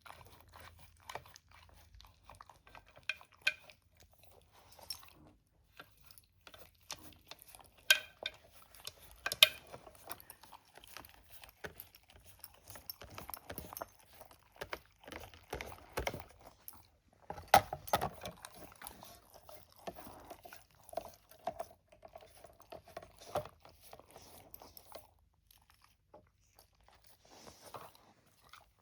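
A pet eating, crunching and chewing its food in irregular bites, with occasional light clinks.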